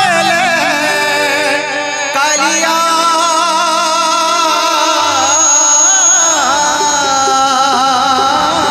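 Live Odia Jagannath bhajan music between sung lines: a wavering melody with heavy vibrato over held notes.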